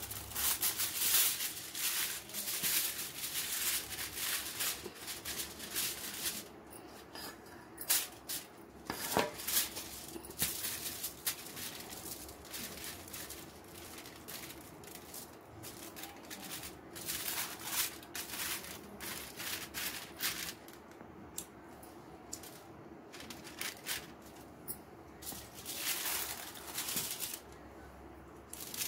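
Aluminium foil being pulled off its roll and pressed flat by hand over a cardboard disc, crinkling and rustling with many irregular sharp crackles.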